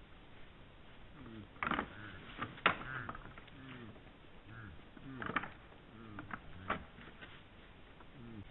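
Red deer stags' antlers clacking and knocking together as they spar, in sharp clicks, a cluster about two to three seconds in and more between five and seven seconds. Under them, a low falling sound repeats about once a second.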